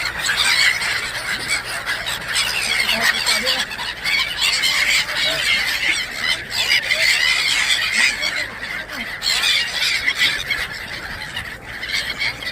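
A large flock of migratory waterbirds calling together: a dense, continuous chorus of many overlapping high squawks and squeals.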